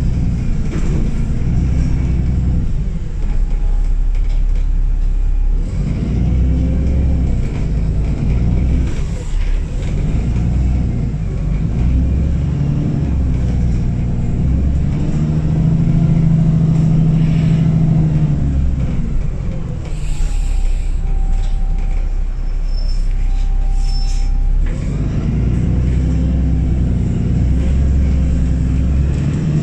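VDL Pulsar Gemini double-decker bus heard from the upper deck: a loud, low diesel rumble whose pitch rises and falls as the bus drives, from an engine with a blown exhaust. Two short high beeps sound about two-thirds of the way through.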